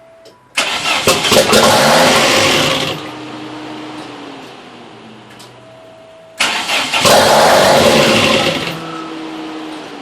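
Custom-built engine in a 1987 Dodge Daytona Shelby Z, started twice: about half a second in and again about six seconds in, it suddenly bursts into loud running, then after a couple of seconds falls to a lower level as its speed sags. It is running with a massive vacuum leak from two unplugged holes in the intake plenum.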